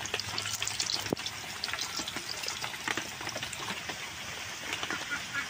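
Hot oil sizzling and crackling in a karahi as patterned flour-and-egg biscuits deep-fry, with a flat spatula gently stirring them. A single sharp click about a second in.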